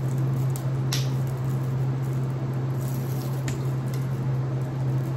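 Wet mouth sounds of a person eating and drinking, with a couple of small clicks, over a steady low hum.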